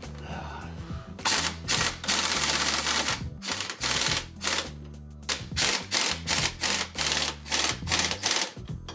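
Impact wrench hammering in repeated short bursts as it runs down the nuts that hold a ball joint to a front suspension arm, starting about a second in with one longer run, then stopping and starting until near the end. Background music plays underneath.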